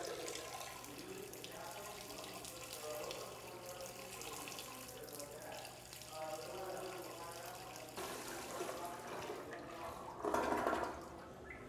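Room ambience of background chatter: several people talking at a distance, indistinct, over a steady low hum, swelling briefly near the end.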